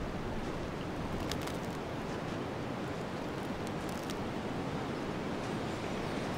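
Steady winter wind blowing, an even rushing noise with faint light ticks here and there.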